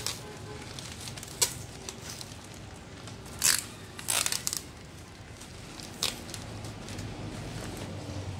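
Two-sided florist wrapping paper and mesh netting rustling and crinkling as they are folded and gathered by hand, with a few sharp crackles, the loudest about three and a half and four seconds in.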